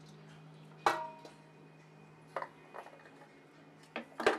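Metal utensil scraping dough out of a plastic food-processor bowl into a stainless steel mixing bowl, with knocks of utensil and bowls against each other. There is one sharp clank with a brief ring about a second in, a few lighter knocks later, and another loud clank near the end, over a steady low hum.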